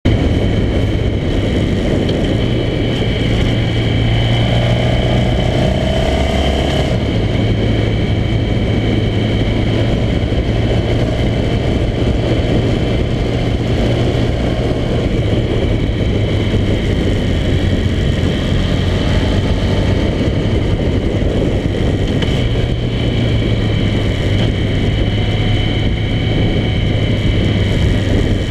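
Honda motorcycle engine and exhaust running at a steady cruise under way, heard from a camera mounted on the bike, with heavy wind and road noise. The engine note shifts briefly about five seconds in.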